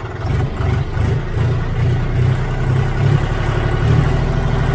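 John Deere 5039D tractor's three-cylinder diesel engine being throttled up from idle to about 1500 rpm, picking up speed just after the start and then running steadily at the higher speed.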